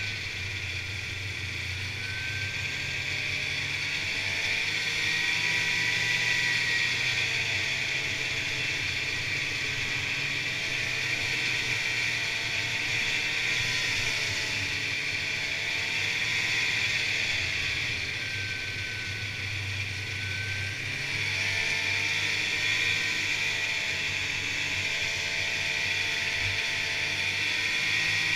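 Polaris Indy snowmobile's two-stroke engine running at trail speed while riding. Its pitch rises and falls as the throttle changes, over a steady hiss from the moving sled.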